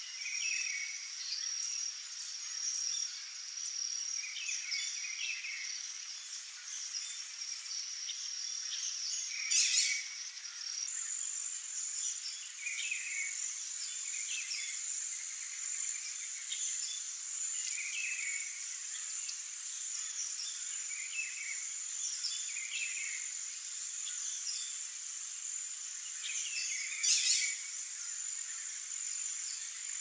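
Forest ambience: a steady high-pitched insect drone, whose pitch steps higher about a third of the way in, with short bird calls repeating every couple of seconds. Two brief louder bursts stand out, about ten seconds in and near the end.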